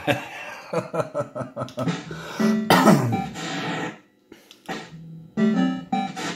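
Bell-Fruit Cash Explosion fruit machine's electronic sound effects: a busy run of beeping tones and clicks with a falling glide about three seconds in, then short bursts of stepped tones near the end.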